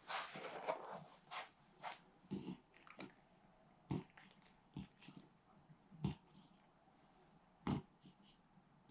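French bulldog snoring in its sleep: a longer rasping breath in the first second, then a string of short, irregularly spaced snorts and snuffles.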